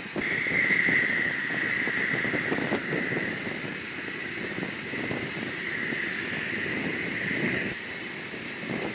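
Jet engines of F-22 Raptor fighters running on the ground, a steady high-pitched turbine whine over a rumble of exhaust noise, easing slightly near the end.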